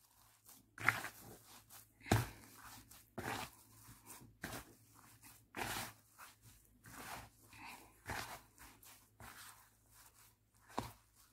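A hand kneads and squeezes sticky ensaymada dough in a plastic bowl. It makes irregular soft pressing and squishing sounds about once a second, over a faint low hum.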